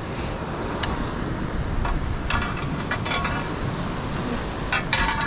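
Wind on the microphone over the steady wash of surf, with a few short clicks and rattles.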